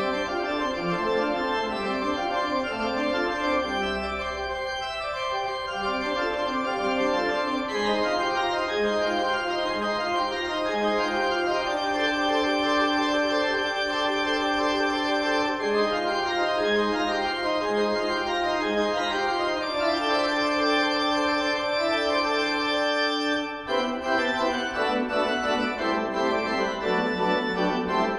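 Pipe organ playing slow, sustained chords that change every second or two, with a brief break between phrases late on.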